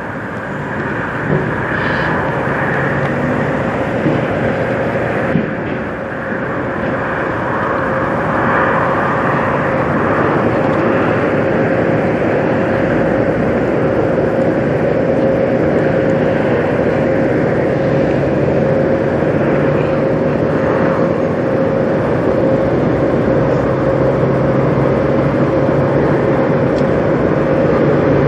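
Diesel engine of a Peterbilt semi truck running at low speed, a steady drone with a constant tone through it. It grows louder about eight seconds in and then holds steady.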